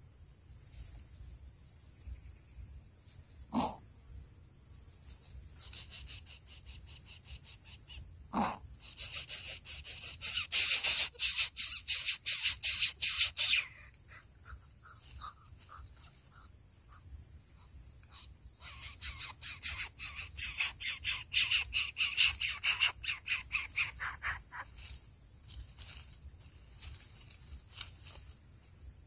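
Cricket trilling steadily in short even pulses, with two brief falling sounds about a third of the way in and long stretches of loud, rapid rasping pulses in the middle and later on.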